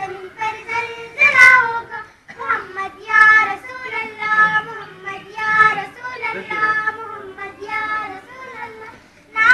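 A young girl singing solo, in melodic phrases with short breaks between them.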